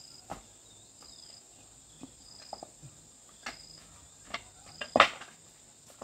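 Short high chirps of an insect repeating about once a second over a steady high hiss, with scattered sharp knocks and clatter of things being handled; the loudest knock comes about five seconds in.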